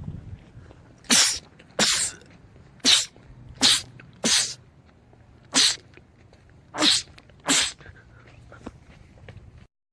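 A man sneezing over and over in a sneezing fit: eight short, sharp sneezes, mostly in quick pairs less than a second apart.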